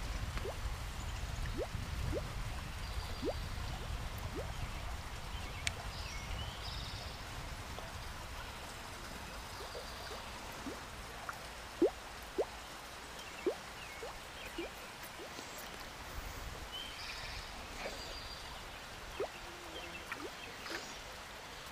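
Hula popper topwater lure popping on the pond surface as it is twitched back: scattered short watery bloops, a few sharper ones near the middle, over a low rumble that fades after the first half.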